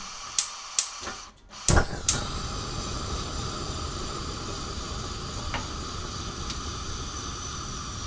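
Two sharp clicks in the first second, then after a short gap a steady hiss with a low rumble starts abruptly, about a second and a half in, and runs on evenly: a cooking sound effect from a kitchen sound pack.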